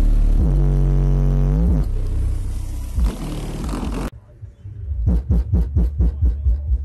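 Bass-heavy music played loud through two Skar Audio VXF-12 12-inch subwoofers in a ported dual box, driven by about 4,000 watts. For the first four seconds deep bass notes glide down and back up. The sound then drops away abruptly, and sharp bass beats follow at about four a second.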